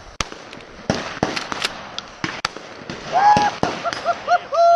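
Shotgun shots fired at a thrown pair of clay targets: a string of sharp reports in the first few seconds. Near the end a person's voice calls out loudly in short rising-and-falling bursts, then one longer falling call.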